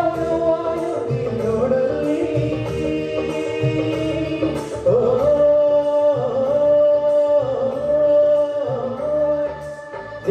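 A song: a voice holding long, wavering notes over instrumental accompaniment.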